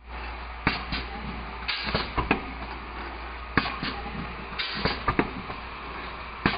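DPP-250D automatic blister packaging machine running: a steady hum under a repeating cycle of sharp knocks and clicks about every one and a half seconds, with a short hiss every three seconds or so as the stations stroke.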